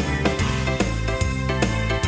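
Background music with a steady beat, its notes changing about every half second.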